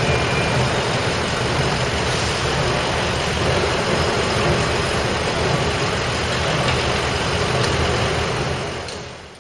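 Fire department ambulance and fire engine idling at the curb, a steady low engine rumble with street noise around it. The sound fades out near the end.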